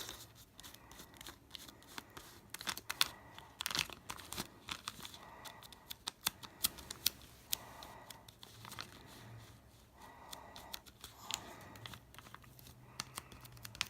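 A plastic sheet and paper crinkling as they are handled, with scattered small clicks and taps at irregular moments.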